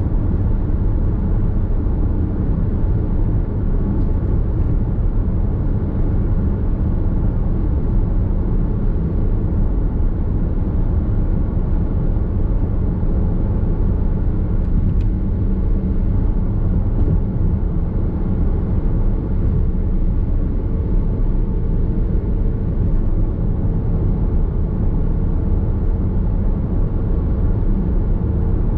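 Nissan X-Trail Hybrid cruising at expressway speed, heard from inside the cabin: a steady low rumble of tyre and road noise with no change in pace.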